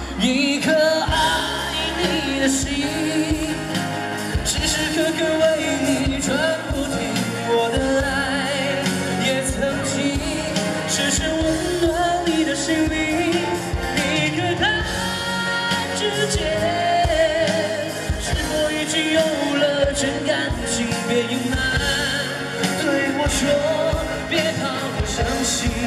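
A man singing a pop song into a microphone through a street PA, over amplified accompaniment with a steady beat.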